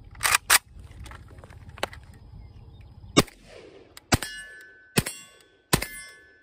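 Romanian WASR 10/63 AK rifle in 7.62x39: the charging handle is racked with two sharp clacks, then about three seconds in the rifle fires a string of single shots a little under a second apart, each followed by a ringing tone.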